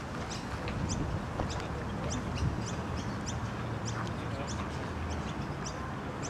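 A bird chirping over and over, short high chirps about one and a half a second, over a low steady background rumble.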